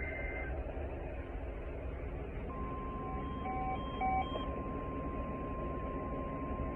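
NOAA Weather Radio alert signals: the end of a two-tone data burst, a short pause, then the steady 1050 Hz warning alarm tone, which starts about two and a half seconds in and holds. Three short beeps sound over the tone just after it begins, with a steady background hiss and hum throughout.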